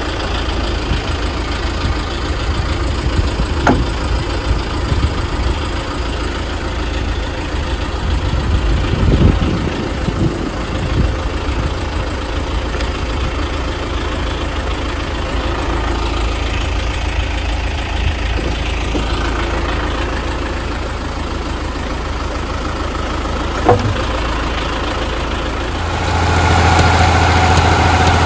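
Heavy engine idling steadily, with a couple of sharp clicks. Near the end the engine note turns louder and more tonal.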